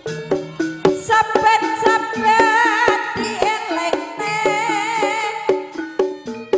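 Live East Javanese jaranan music from a gamelan-style ensemble: pitched metal percussion steps through a quick, even running melody over drum strokes. From about a second in, a high wavering melody line with vibrato joins above it.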